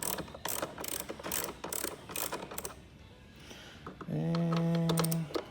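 Hand ratchet clicking, about three clicks a second, as T25 Torx bolts are turned into a plastic speaker mount. It stops after about two and a half seconds. Near the end comes a steady hummed tone lasting about a second.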